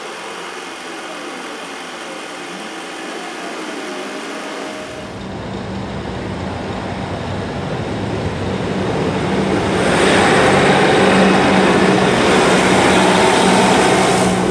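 A Sprinter diesel multiple unit approaching and running over the level crossing: a rumble that builds, with a steady engine drone under it, and is loudest from about two-thirds of the way in as the train passes close by.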